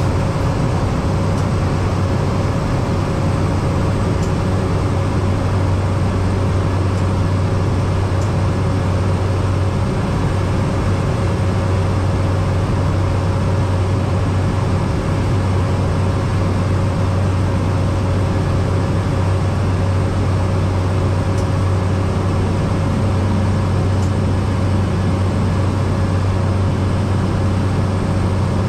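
Cessna 208B Caravan's PT6A turboprop engine and propeller running, a steady loud drone with a deep even hum.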